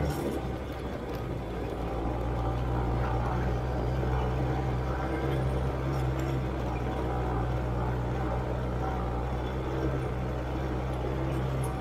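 ATV (quad bike) engine running steadily while the quad is ridden over sand. The engine note eases off at the start and builds back up over the next couple of seconds.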